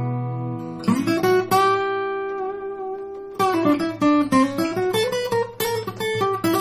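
OO-size steel-string acoustic guitar with a Sitka spruce top and rosewood back and sides, played solo. A chord slides up into place about a second in and rings out, then a quicker run of picked single notes with small bends begins about halfway through.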